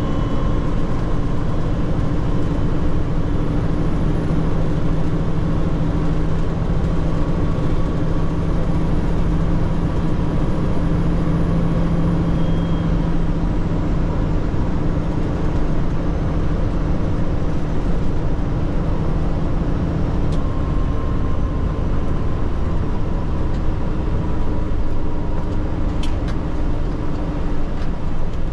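Tanker truck's engine and road noise heard from inside the cab while driving, a steady hum with a low engine tone that is strongest in the first half. A single sharp click near the end.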